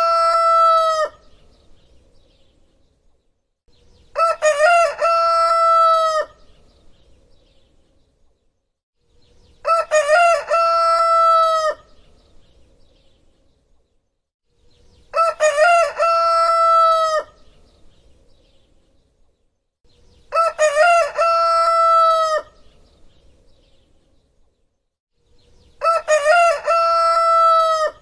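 Rooster crowing cock-a-doodle-doo, the same crow repeated at even intervals about every five and a half seconds: five full crows, plus the end of one just at the start. Each crow opens with a few short broken notes and ends on a long held note.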